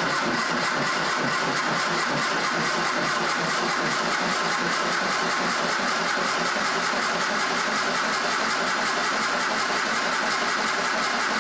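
1966 Triumph Spitfire's 1147cc four-cylinder engine turned over on the starter motor with the ignition off, cranking at an even, rhythmic pace without firing. The steady cranking speed shows the battery is still good after the car sat unused.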